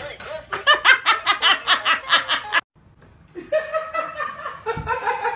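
A person laughing hard in quick, rhythmic bursts, cut off abruptly about two and a half seconds in; after a short gap, more laughing voice follows.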